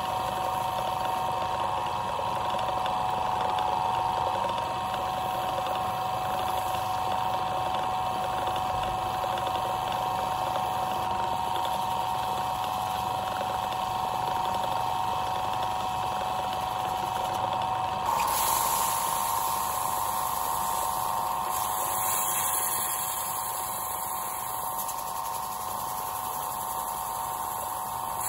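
Wood lathe running steadily with a high motor whine while a bamboo cup is polished on it by hand. About eighteen seconds in the sound shifts and a hiss comes in.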